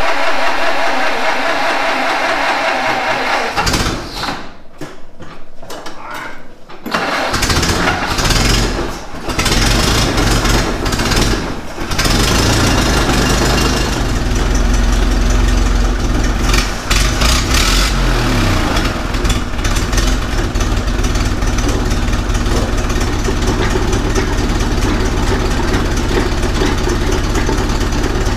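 Ford Model T four-cylinder engine being started; it catches several seconds in and settles into a steady run. It is driving the car's raised rail wheels in gear, off the ground, to check how true they run.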